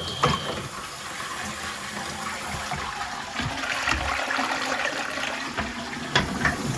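Toilet flushing from a concealed cistern with a newly fitted siphon, water rushing steadily into the pan: the flush now works. A sharp click comes just after the start and another near the end.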